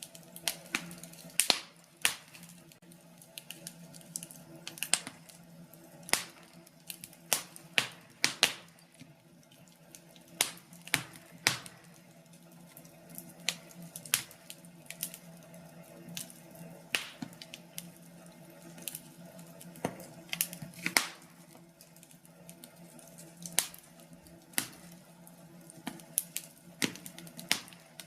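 Fire crackling in a fireplace: irregular sharp pops and snaps, a few every couple of seconds, over a faint steady hum.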